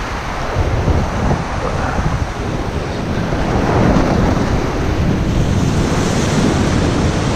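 Wind buffeting the microphone over waves washing on the shore.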